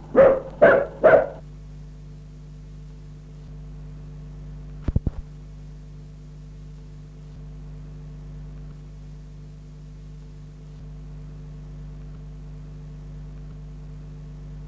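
A dog barks three times in quick succession, then a steady hum of several fixed tones carries on, broken by a brief cluster of clicks about five seconds in.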